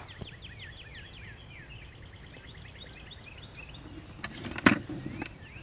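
A songbird singing a rapid trill of short falling notes for about three seconds. A few footsteps follow, with one sharp knock, the loudest sound, near the end.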